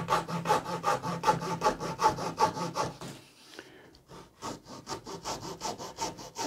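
Junior hacksaw cutting through a small model capping-stone strip, in quick even back-and-forth strokes of about four a second. The sawing stops for about a second just past the middle, then starts again a little fainter.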